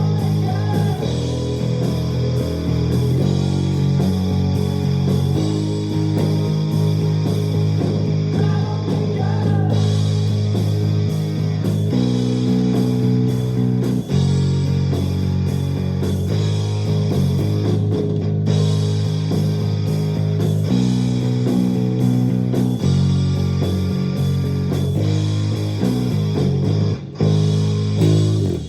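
Luxars S-KB20 travel mini-size electric bass playing a rock line, its low notes changing every second or two, with drums and cymbals ticking along.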